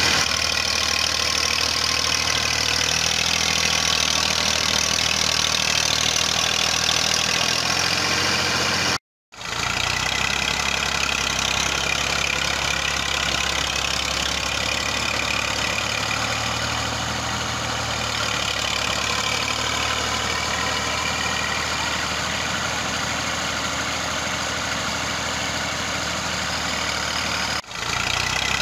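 Massey Ferguson 240 tractor's three-cylinder diesel engine running steadily, the tractor stuck in mud and hitched to a heavily loaded straw trolley. The sound cuts out for a moment about a third of the way in and dips briefly near the end.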